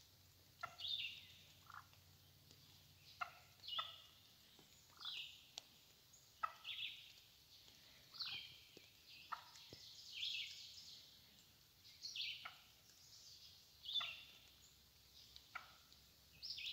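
Hen wild turkey calling: short calls, each with a quick downward sweep, coming irregularly about once a second in ones and twos.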